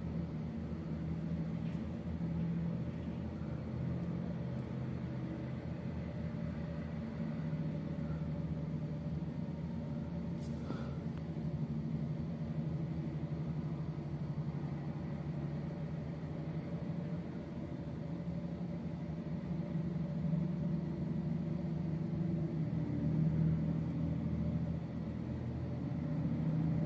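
Steady low drone of a working river dredge's diesel engines, a held hum that swells a little near the end.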